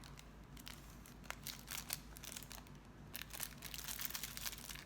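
Packaging of camera accessories crinkling and rustling as it is handled and opened, with scattered small clicks and taps, busier in the second half.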